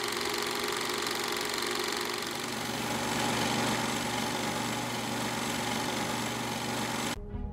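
Film projector running: a steady, fast mechanical clatter with hiss that cuts off suddenly near the end.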